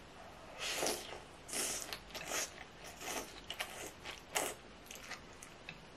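Close-miked eating sounds of a mouthful of malatang noodles with beef and greens: wet slurping and chewing, in about six short bursts.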